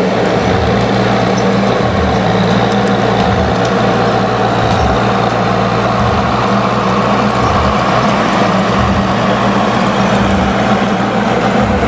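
Log skidder's diesel engine running hard and steady under load while it drags a heavy bundle of logs. The exhaust smoke it is putting out is a sign of how hard the engine is working.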